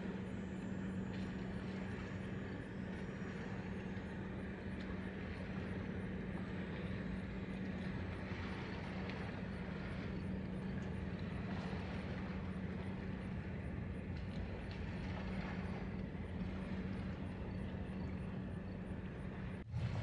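Cruise ship passing, its engines giving a steady low hum over a constant wash of noise.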